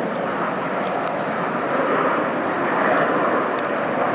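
Jet engines of four Blue Angels F/A-18 Super Hornets flying overhead in diamond formation: a steady, continuous roar.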